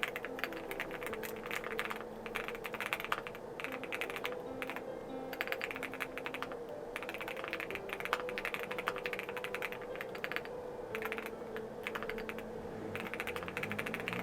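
Typing on a QK80 custom mechanical keyboard with Hiamu Midnight switches and MW Keys Love Story keycaps: a dense run of key clacks in bursts, with short pauses between them. Soft background music plays underneath.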